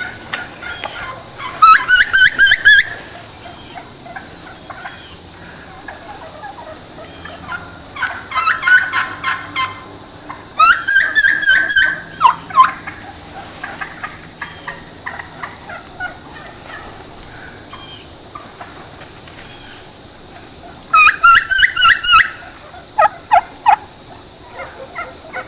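Wild turkeys yelping: several short series of quickly repeated notes, real hen talk, with quieter pauses between the series.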